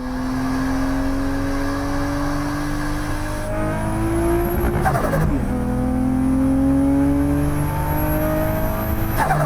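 Nissan S13's swapped, straight-piped turbo RB20 straight-six accelerating hard through the gears. The revs climb steadily, fall at a gear change about five seconds in, climb again and fall at another change near the end. Each lift brings a short turbo flutter, as it runs with no dump valve.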